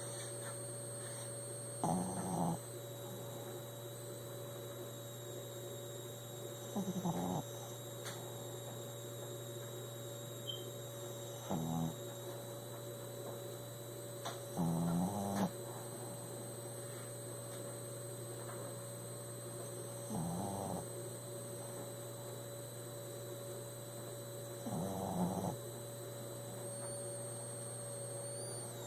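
A sleeping pug snoring, six snores about every four to five seconds, each lasting under a second, over a steady low electrical hum.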